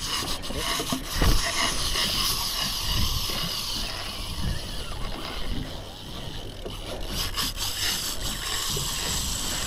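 Steady hiss of wind and sea around an open boat, with rubbing and a few sharp clicks from a fishing rod and reel as a hooked fish is fought.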